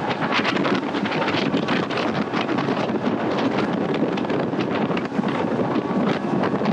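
Heavy wind buffeting the microphone on a boat running fast over open sea, with rushing water and spray and the outboard motor under it.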